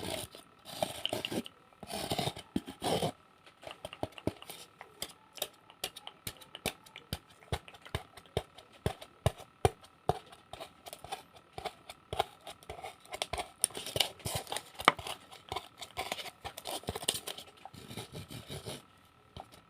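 Close-up ASMR tapping and scratching on objects: many quick, irregular taps and clicks, with stretches of rubbing or scraping during the first few seconds and again near the end, over a faint steady high hum.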